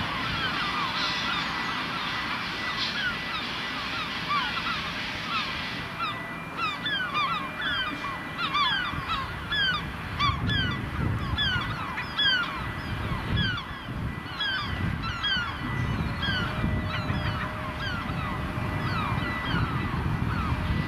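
Many birds calling throughout, with dense, short, falling calls. From about halfway, the uneven low chuffing of a steam locomotive's exhaust as it pulls away.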